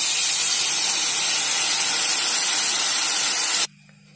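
Tamarind water poured into a kadai of hot oil and fried spices, sizzling with a loud, steady hiss as the water hits the hot oil. The hiss cuts off suddenly near the end.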